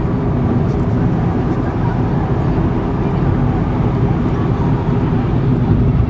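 Steady road and engine noise of a car driving along a city street, heard from inside the cabin.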